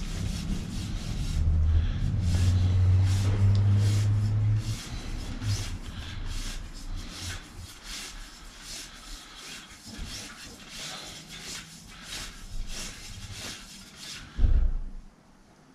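A cloth wiping brake dust off a bicycle rim's braking surfaces, in quick repeated rubbing strokes a few times a second. A low hum sounds over the first few seconds.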